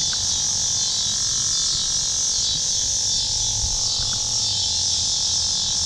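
Steady high-pitched insect chorus, with a low rumble of handling on the microphone underneath.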